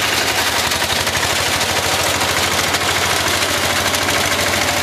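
Tractor-mounted reaper cutting standing crop. The cutter bar gives a fast, steady clatter over the steady hum of the tractor engine.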